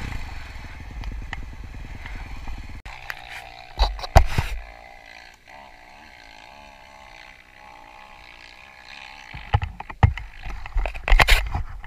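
KTM dirt bike engine running at low speed, then settling to a wavering idle as the bike stops. Sharp knocks and clatter come about four seconds in and again near the end.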